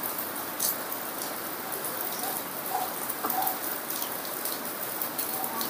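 Heavy rain pouring down: a steady, even hiss with scattered sharp ticks of drops.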